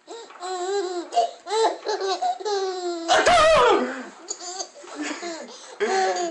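Baby laughing in repeated high-pitched bursts of giggles and squeals. A loud sudden burst about three seconds in is the loudest moment, and the laughter carries on after it.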